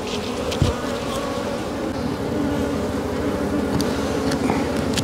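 A mass of wild honeybees buzzing steadily around their exposed comb. A dull thump about half a second in and a few light clicks near the end.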